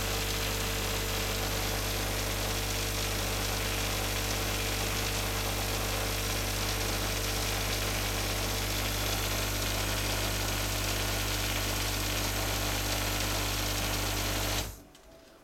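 Automatic misting system on a reptile enclosure running: a steady pump hum under the hiss of spraying water, cutting off suddenly near the end.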